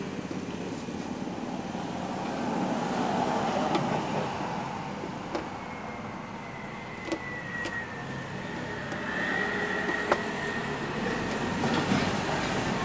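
Steady background traffic noise from passing vehicles. A faint whine slides slowly lower around the middle, and a few light clicks are heard.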